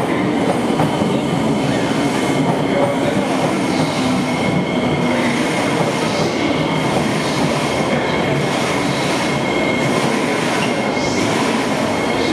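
North South Line metro train running past on elevated track, a steady rumble of wheels and running gear. A thin, high wheel squeal comes in partway through and fades near the end.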